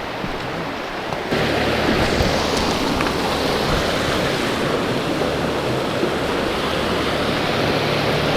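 Creek water flowing, a steady rushing noise that jumps louder about a second in and holds there.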